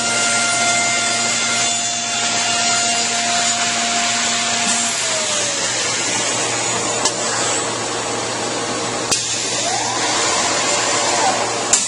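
Busellato Jet Optima S2 CNC machining centre working a wooden panel: steady machine noise with the whine of the spindle and dust extraction. The whine drops in pitch about five seconds in, a second whine rises and falls near the end, and three sharp clicks come in the second half.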